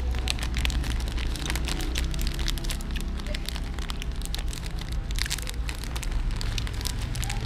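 Foil-lined plastic snack bag crinkling and crackling as fingers squeeze and pull at its torn top, with a steady low rumble underneath.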